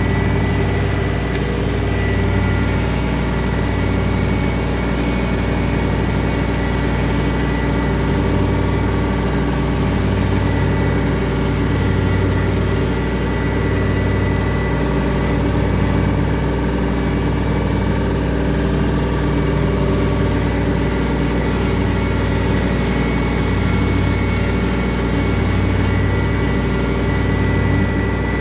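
Compact tractor's engine running steadily under mowing load with its mowing deck engaged: a constant drone with a slow, regular waver.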